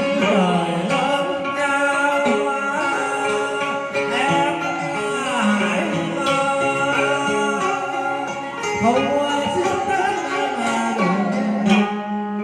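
A tân cổ song (Vietnamese cải lương-style singing) sung with sliding, wavering vocal lines over plucked-string accompaniment.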